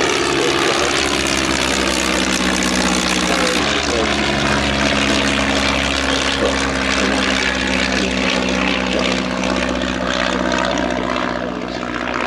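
Stampe SV4C vintage biplanes in flight: a steady propeller-driven piston-engine drone, which shifts in pitch about three and a half seconds in.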